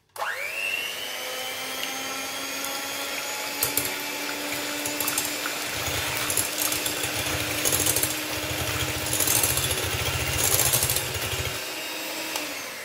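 Black+Decker electric hand mixer whirring as its twin beaters whisk two raw eggs in a bowl. The motor starts with a rising whine, runs steadily with a low rattle through the middle few seconds, and winds down with a falling pitch near the end.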